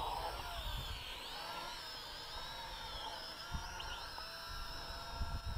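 Propel Cloud Rider quadcopter's small electric motors and propellers whining as it lifts off and hovers, several tones wavering in pitch as the throttle changes. Wind buffets the microphone in low gusts.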